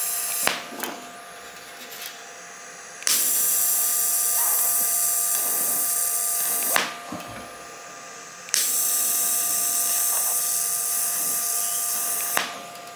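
Welding arc running in three steady hissing runs of about three and a half seconds each, with short pauses between them, as welds are laid on a steel motorcycle frame part.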